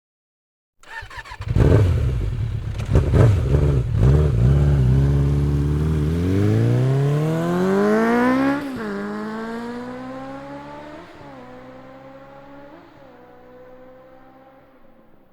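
A motorcycle engine starts with a clatter and runs, then pulls away and accelerates up through the gears. Its note rises and drops back three times, at gear changes, while it fades away.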